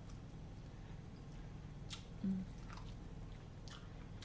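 Close-miked chewing of corn on the cob, with a few sharp wet mouth clicks about two seconds in and again near the end, and a brief hummed "mm" just after two seconds, over a steady low hum.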